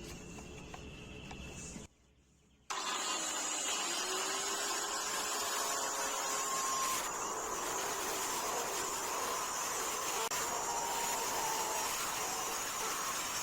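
Steady rushing noise of a running machine. It comes in abruptly about three seconds in, after a short quiet gap, and holds level.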